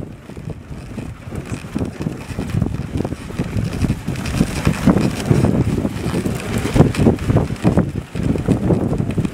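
Wind buffeting the microphone on a moving dog sled, over the uneven rumble of the sled running across packed snow. It grows louder about three seconds in.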